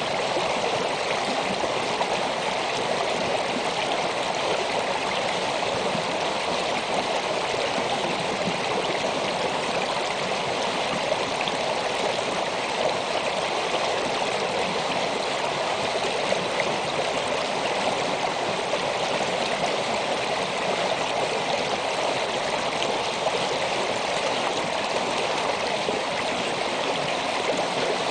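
A shallow stream flowing over rocks: a steady, unbroken rush of running water.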